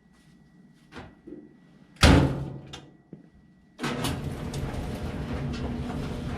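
A few light clicks, then a loud slam about two seconds in. Music starts near four seconds in and carries on.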